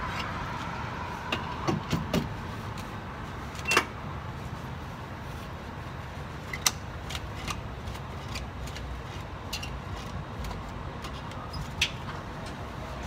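Gasoline pump nozzle handled at a car's open filler neck during refuelling: scattered sharp metal clicks and clunks over a steady background hum.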